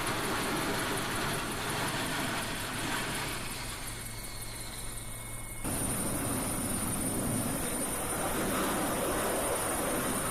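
F-35B Lightning II jet engine noise, a steady rushing sound. It eases off a few seconds in, then comes back abruptly at a cut about five and a half seconds in.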